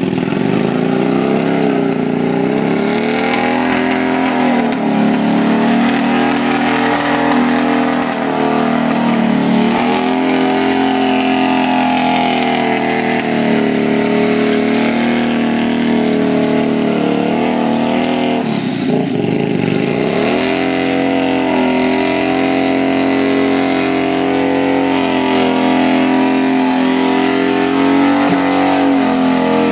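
Cruiser motorcycle engine held at high revs through a burnout, the rear tyre spinning on the pavement. The revs sag and recover a few times, most deeply about nineteen seconds in.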